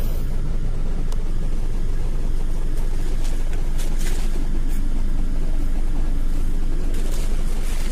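Hino RM280 bus's six-cylinder diesel engine idling, a steady low rumble heard from inside the passenger cabin. A few soft brief rustles come through near the middle and near the end.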